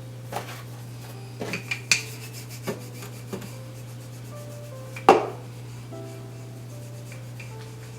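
Rolling pin rolling out folded paratha dough, a rubbing sound broken by scattered knocks and taps, the loudest about five seconds in.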